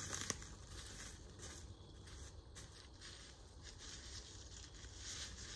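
Footsteps crunching and shuffling through dry fallen leaves, with the rustle and knock of a wooden pole ladder being carried, and one sharp click near the start.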